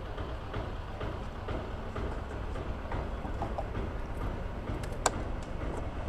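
A scooter's fuel filler cap being closed, with light plastic clicks and one sharp click about five seconds in as the cap is pressed shut, over a steady low background rumble.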